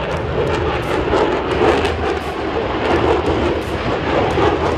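Fighter jet engine during a fast, high-G display pass: a loud, steady jet rumble with a crackling edge.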